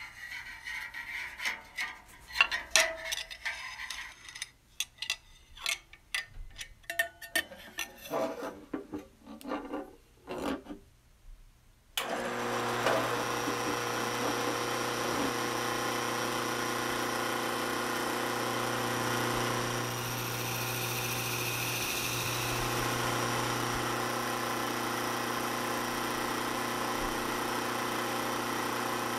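Irregular clicks and knocks of tools and parts being handled. About twelve seconds in, a benchtop drill press switches on abruptly and runs steadily with a wire wheel spinning in its chuck, giving an even motor hum.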